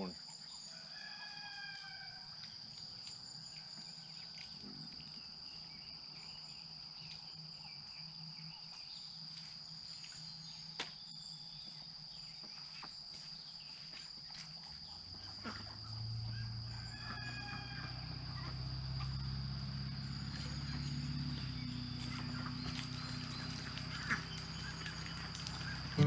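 Ducks calling in a few short falling notes near the start and again later, over a steady high-pitched insect drone. From about 15 seconds in, a low rumble sets in and carries on.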